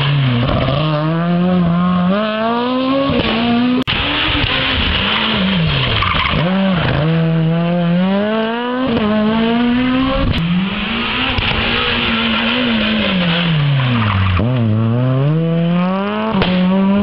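Rally car at full throttle on a special stage, passing close and driving away. The engine revs climb hard and drop back again and again as it accelerates, lifts and accelerates, with a few sharp cracks along the way.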